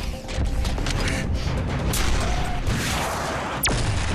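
Cartoon action score music mixed with sound effects, with a quick falling sweep near the end.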